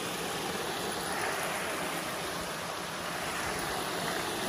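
Small rocky creek running steadily over stones.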